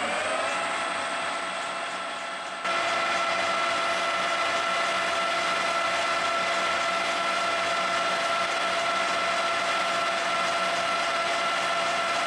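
Colchester 1800 manual lathe with a Delrin workpiece in the chuck, its spindle settling to speed just after the start and then running with a steady whine while it turns the part. The level jumps up suddenly about two and a half seconds in.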